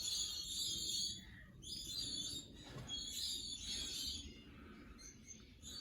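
Faint, high-pitched chirping and calling of aviary birds.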